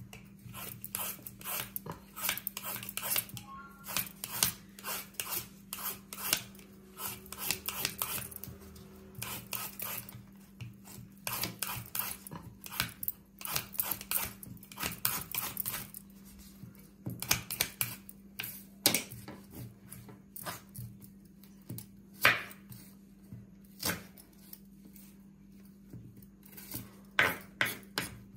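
Y-shaped vegetable peeler scraping the skin off a raw green banana in quick, uneven runs of strokes, with a few louder sharp knocks.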